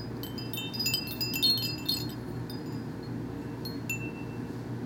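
Wind chimes jingling: a dense flurry of high ringing notes in the first two seconds, then a few single notes ringing out.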